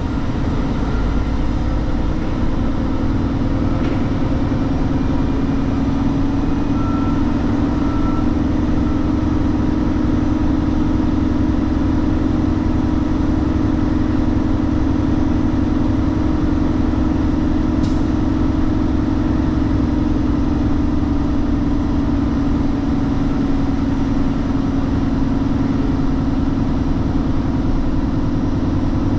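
Heavy truck engine running with a steady, unbroken drone that holds its pitch throughout, with one brief click about two-thirds of the way through.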